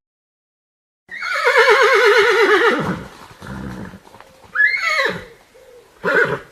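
Horse neighing: a long whinny with a quavering, slowly falling pitch, then a shorter neigh that rises and falls, and a brief call near the end.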